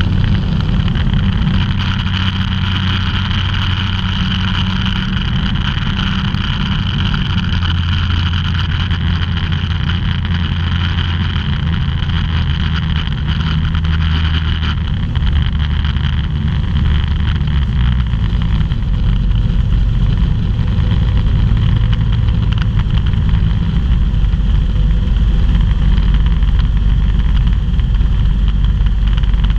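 Microlight aircraft engine and propeller running in flight, heard from inside the cockpit over a steady rush of airflow. The engine note shifts in pitch several times, and the sound grows a little louder in the last third.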